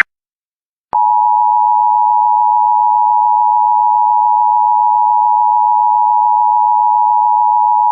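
Emergency Alert System attention signal: a steady two-tone alert tone near 1 kHz (853 and 960 Hz sounded together) that starts sharply about a second in and holds at one level.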